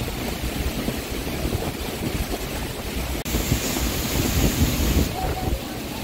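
Gusty storm wind buffeting the microphone with a dense low rumble, while rain falls. A brighter hiss joins for about two seconds midway.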